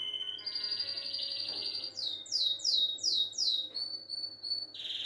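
A songbird singing: a high, rapid trill held steady that jumps higher about half a second in, then a run of about five quick falling notes, then short high notes, with a lower trill starting again near the end.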